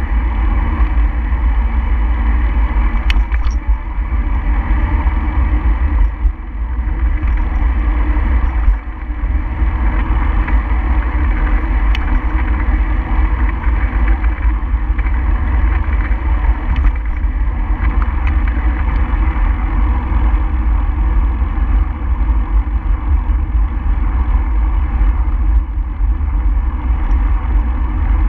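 Steady wind buffeting on the microphone with road noise while moving along the route, heavy and rumbling at the low end, with a few faint clicks.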